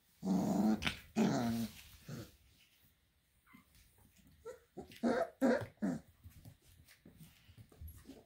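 Four-week-old puppies growling and yipping as they play-fight: two longer growls close together at the start, then a quick run of short yips and growls about five seconds in.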